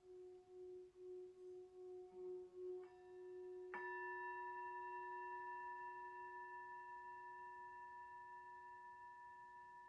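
A low singing-bowl tone ringing with a slow, even wobble, then a higher bowl struck about four seconds in that rings on and slowly fades over the low tone.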